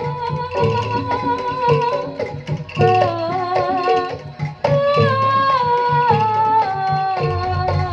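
Instrumental passage of Javanese jaranan music. A held, stepping melodic lead line plays over a kendang-style drum pattern and briefly drops out about four seconds in before resuming.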